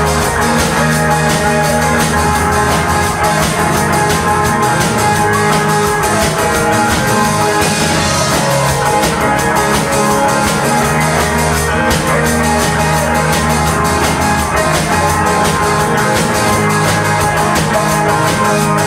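Live rock band playing an instrumental passage: drum kit keeping a steady beat under electric guitars, with no vocals yet.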